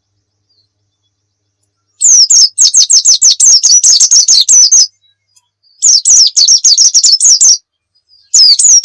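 White-eye (pleci) singing in fast, high twittering phrases. After about two seconds of silence come three bursts of song, each two to three seconds long with short pauses between them.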